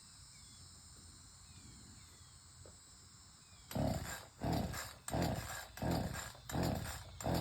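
Faint crickets, then a dog starts barking about three and a half seconds in, a steady run of loud barks about one every 0.7 seconds.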